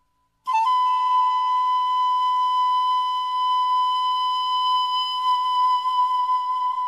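Background music: a single high note held steadily, starting about half a second in.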